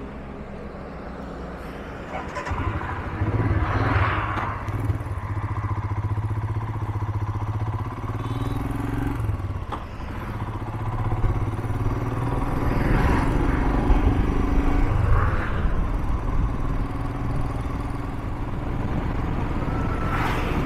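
Royal Enfield Himalayan's single-cylinder engine pulling away about two seconds in and running at highway cruising speed, with wind and road noise. Passing vehicles swell up now and then, and trucks go by close near the end.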